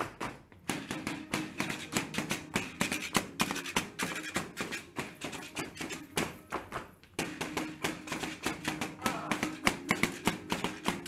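Devil-dance music: rapid, rhythmic taps and clacks over a steady held tone, breaking off briefly near the start and again about two-thirds through.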